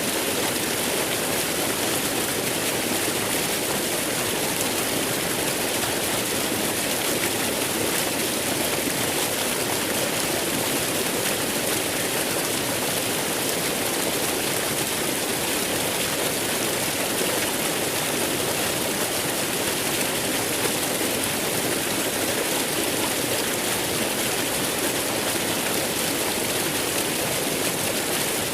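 Waterfall: falling water rushing in a steady, unbroken roar with plenty of hiss.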